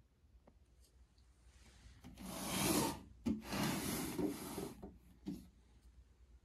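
Rubbing or scraping noise in two strokes of about a second each, with a sharp click between them and a short rub after.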